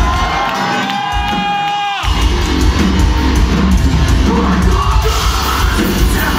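Metalcore band playing live at high volume: distorted guitars, drums and yelled vocals. Just after the start the drums and bass drop out under a single held note, and the full band comes back in about two seconds in.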